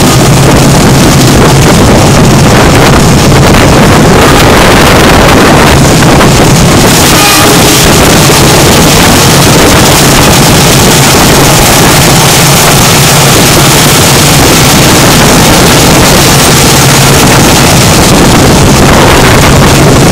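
Wind buffeting the microphone, held out of the open window of the moving Lodaya passenger train, over the train's steady running rumble. Loud and unbroken throughout.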